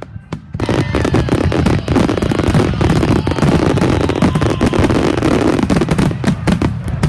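Aerial fireworks going off: a few separate bangs, then from about half a second in a dense, continuous rapid crackle of many overlapping bursts.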